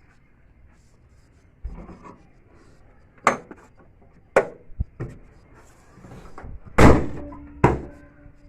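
Car bonnet being closed: a few knocks and clicks, then the bonnet slammed shut about seven seconds in, the loudest sound, followed by another sharp slam under a second later.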